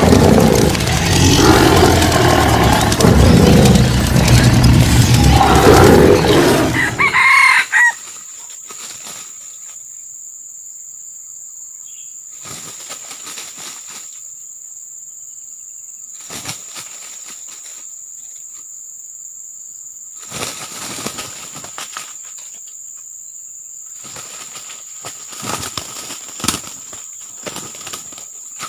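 A loud intro sound for the first seven seconds or so. Then junglefowl roosters scuffle and flap their wings in dry leaf litter in four short bouts, over a steady high insect whine.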